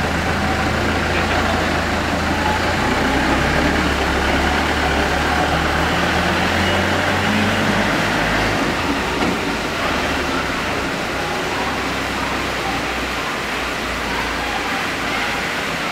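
Trackless tourist train's engine running with a steady low hum as the train pulls away and drives off; the hum shifts in pitch a couple of seconds in and grows weaker about halfway through as the train moves off.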